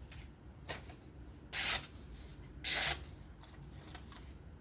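Two short scraping strokes of a D2 steel knife blade drawn across a sharpening abrasive while the edge is touched up.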